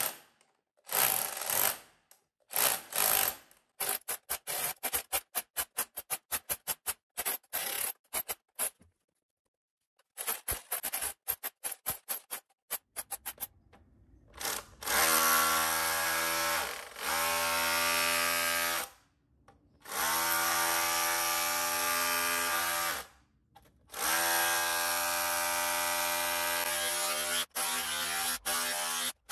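Bosch UniversalHammer 18V cordless SDS-plus rotary hammer chipping tile and mortar in short, choppy bursts. About fourteen seconds in, it switches to a steady, even motor whine as the bit drills into soil, stopping briefly twice.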